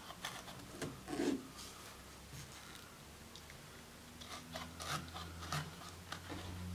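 Faint clicks and rubbing of plastic and metal as hands work the base clamp screw of a cheap trim router that is not running.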